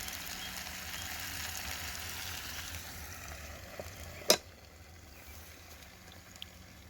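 Sausages sizzling in a Ridgemonkey pan, a steady frying hiss. About four seconds in there is one sharp click, and after it the sizzling is much fainter.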